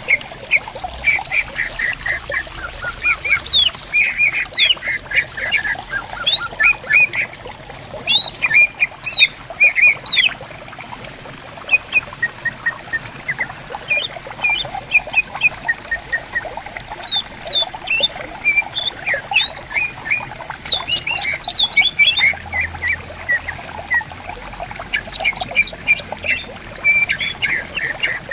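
Green leafbirds (cucak ijo) singing back and forth in fast runs of short, sharp chirps and whistles, over the steady trickle of a stream.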